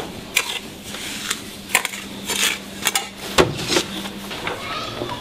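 Metal ladle clinking and scraping against a stainless-steel pan as granulated sugar is scooped into it: irregular sharp clicks, about two a second, over a low steady hum that stops about four seconds in.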